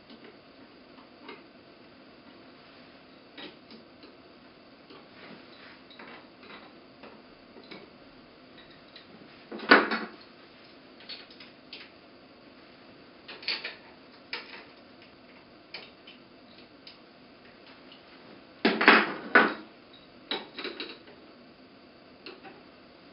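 Small hand wrench working the screws of a micro-hydro turbine's guide-vane housing as they are checked for tightness: scattered metal clicks and clinks, with a louder clank about ten seconds in and a short cluster of clanks near nineteen seconds.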